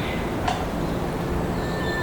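Steady rush of a flowing river, with a sharp click about a quarter of the way in and a thin, steady high whistle from a songbird starting near the end.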